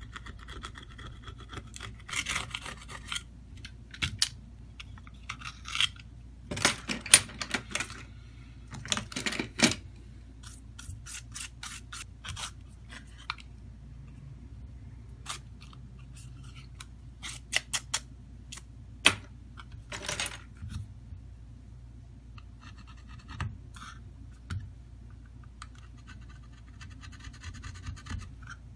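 A toothbrush and a pointed tool scrubbing and scraping the bare plastic-and-metal midframe of a Samsung Galaxy A02s, cleaning the frame for a new screen. The scrubbing comes in irregular short scratchy bursts, with sharp clicks and taps of the tool on the frame.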